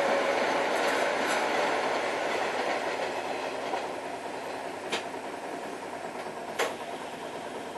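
Train passing over a level crossing, its rumble fading as it moves away. Two sharp clicks come near the end.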